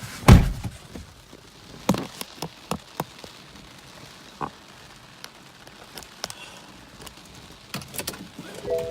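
Scattered raindrops tapping irregularly, a few at a time, after one heavy thump just after the start. Near the end an electronic chime of a few steady tones begins.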